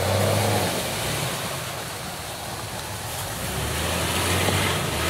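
Jeep engines running under load as a Wrangler tugs a stuck Cherokee XJ with a tow strap, with the XJ's tyres spinning and churning through mud and water. An even hiss lies over the engine hum throughout.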